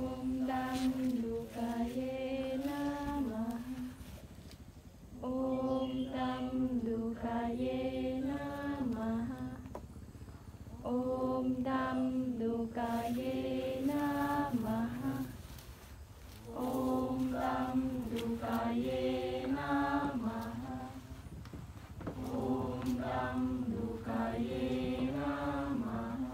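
Group of voices chanting a devotional mantra in a repeating sung phrase, five times over with a short pause between phrases.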